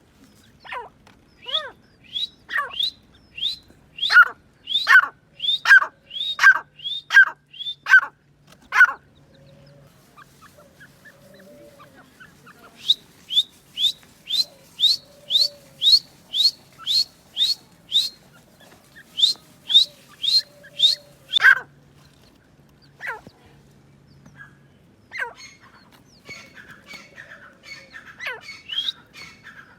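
Grey francolin calling: loud, sharp notes repeated in quick series, about one or two a second. The calls break off for a few seconds in the middle, come back as a faster run of rising notes, and end as scattered calls.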